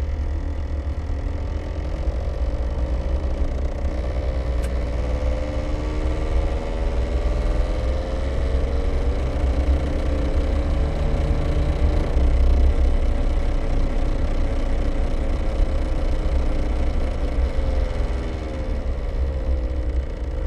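Daihatsu Terios Kid on the move: a low rumble with a whine whose pitch slowly rises and falls with road speed. It is an abnormal driveline noise that is present only while the car is rolling and not when the engine is revved standing still; the owner suspects a drive shaft or the front differential.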